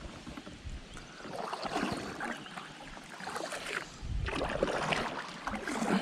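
River water splashing and trickling around a kayak, swelling about a second in and again about four seconds in.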